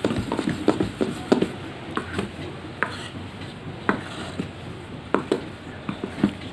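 Wire whisk beating thick gram-flour dhokla batter in a steel bowl: irregular clinks and taps of the wires against the metal, with the wet slap of the batter, which is turning airy after Eno fruit salt was stirred in.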